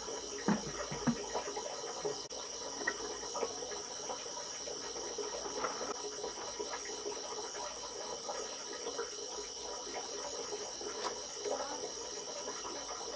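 Night-time chorus of crickets or other insects chirping steadily in a fast pulsing trill, with a few light knocks and small clicks from handling near the start.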